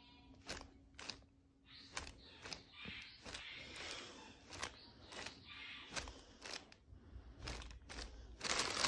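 Faint rustling of nylon sleeping-bag fabric with scattered light taps and clicks as a cat pounces and paws at it.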